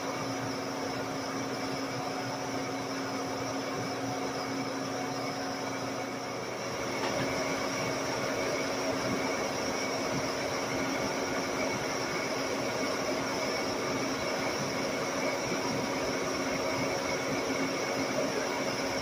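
Metal lathe running: a steady machine hum with a few fixed tones, growing a little louder about seven seconds in.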